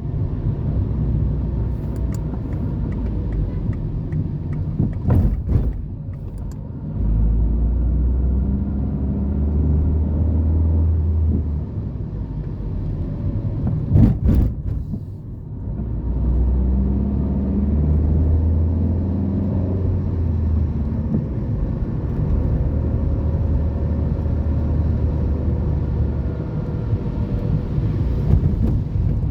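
Road traffic: motor vehicles running past with a steady low rumble, heavier for stretches, and a couple of short knocks.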